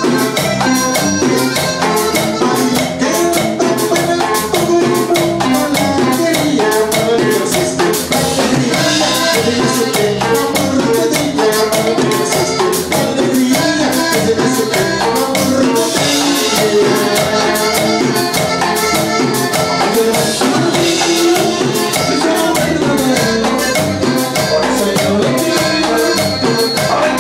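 Live norteño band playing, with no singing: button accordion melody over electric bass and strummed acoustic guitar, and a drum kit keeping a quick beat with steady cymbal ticks.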